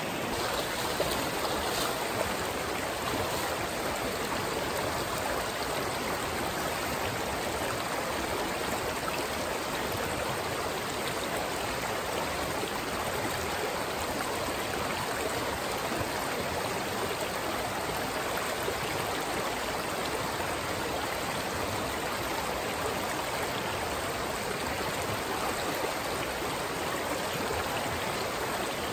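A small rocky mountain creek rushing steadily through riffles and over stones, running high with rain and snowmelt.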